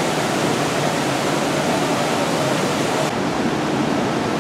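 Steady rushing background noise with no distinct events. About three seconds in, the top of the hiss drops away as the scene changes.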